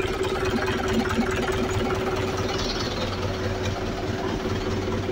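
Mahindra 585 DI Power Plus tractor's four-cylinder diesel engine idling steadily.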